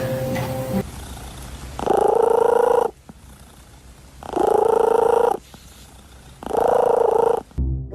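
A cat making three loud, rough, pulsing calls, each about a second long, with short pauses between them.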